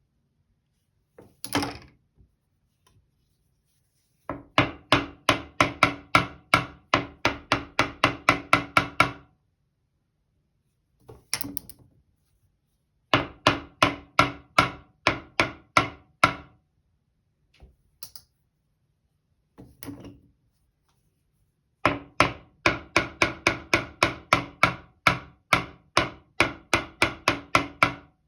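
A person coughing in rapid, harsh fits of about three coughs a second. There are three long runs of coughing, the first about four seconds in, with a few single coughs between them. The cough is set off by dust shed from non-slip clothes hangers.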